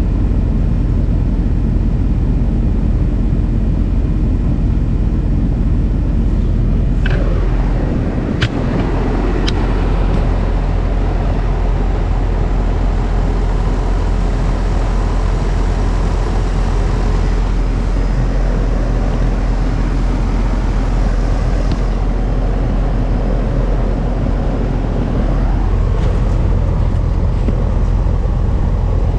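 Steady engine and road rumble of a vehicle being driven, heard from inside the cab, with a few short clicks about seven to ten seconds in.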